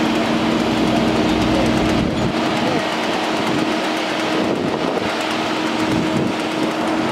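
Fire truck's engine running steadily to power the turntable ladder, a continuous mechanical hum with a steady drone. A deep low rumble under it drops away about two seconds in.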